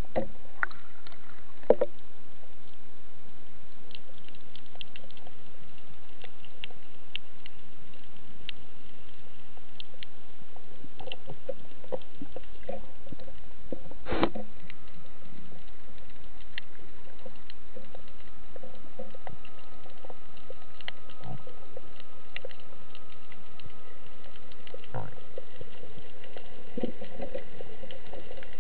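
Underwater ambient sound: a steady hiss with scattered faint clicks and crackles. There is one sharper knock about fourteen seconds in, and a faint steady tone through the middle part.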